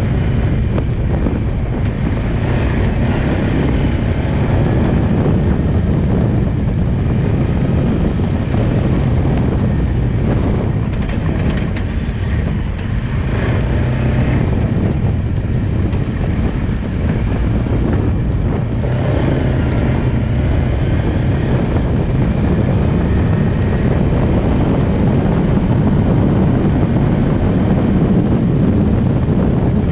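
Quad bike (ATV) engine running steadily, loud and heavy in the low end, with a slight dip in level about twelve seconds in.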